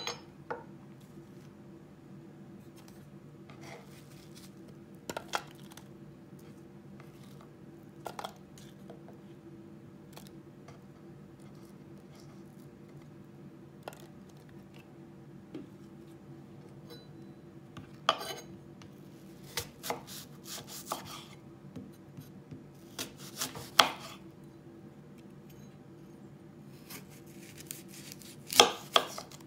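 A kitchen knife cutting a green apple on a wooden cutting board, giving scattered knocks and scrapes of the blade against the board, with apple pieces set clinking into a glass dish. The loudest cuts come near the end, over a faint steady low hum.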